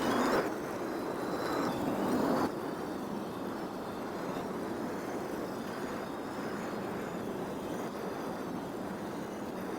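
Marbles rolling along a marble run track, a steady rolling noise with two louder spells in the first two and a half seconds.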